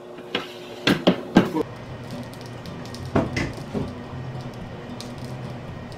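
Several light knocks and clatters of pots and kitchenware being handled, about four in the first second and a half and a few more around three seconds in. From about a second and a half in, a steady low hum runs underneath.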